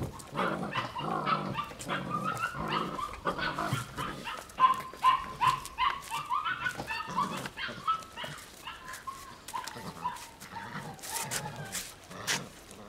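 Belgian Malinois puppies barking in a rapid string of short, high calls that thin out near the end.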